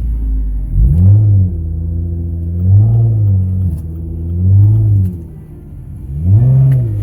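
Music with a deep bass note that slides up and back down in pitch in a regular pattern, about every two seconds, over the low rumble of the moving car.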